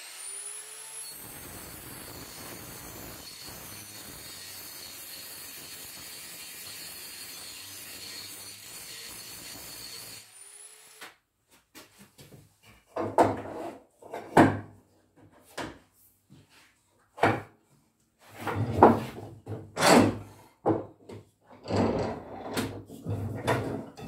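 Angle grinder fitted with a wire cup brush running with a steady high whine for about ten seconds, then cutting off. After that, a wooden mallet strikes wood on a workbench in a series of irregular knocks.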